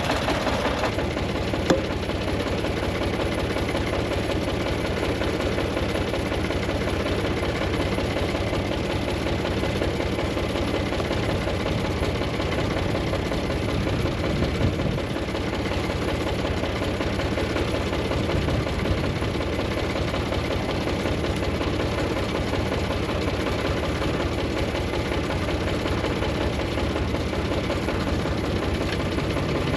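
Tractor engine running steadily with no change in speed, with one sharp click about two seconds in.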